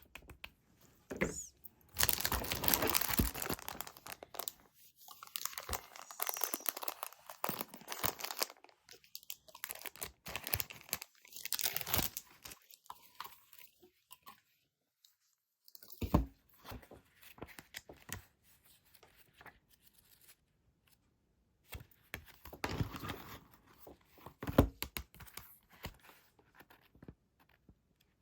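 Packaging being torn open and crinkled by hand, in irregular rustling spells with short pauses between; the longest and loudest spell comes a couple of seconds in.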